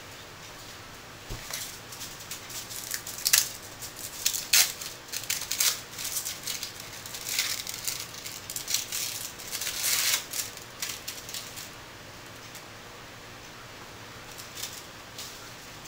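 Thin plastic wrapper crinkling in irregular crackles as it is peeled off an individually wrapped cheese slice. It starts about a second and a half in and stops a few seconds before the end.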